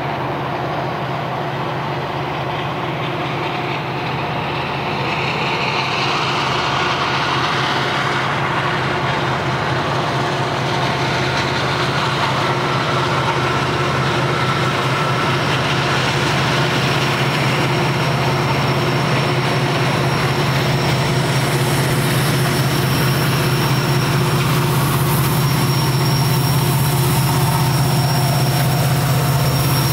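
Diesel locomotives approaching slowly around a curve, a steady low engine rumble that grows louder as they near. In the second half, thin high-pitched wheel squeal from the curve joins in.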